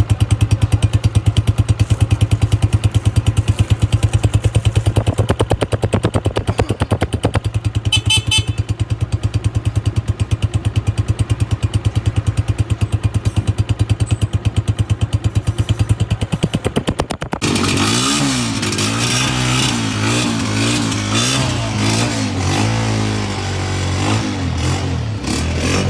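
Honda CG125 single-cylinder four-stroke motorcycle engine running at idle with a rapid, even exhaust beat. About 17 seconds in, the sound switches abruptly to a smoother engine note that wavers up and down in pitch.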